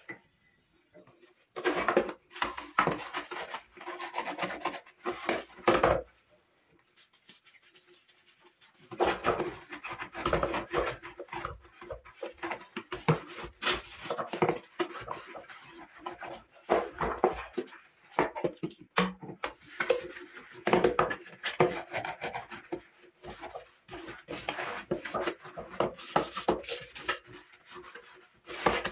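Scrubbing by hand on a hard surface: uneven runs of rubbing strokes, with a pause of about three seconds some six seconds in.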